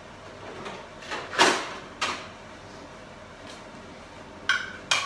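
Kitchen handling noises at a stove: a louder scrape about a second and a half in, a sharp knock just after, then two quick clinks of metal cookware ringing briefly near the end.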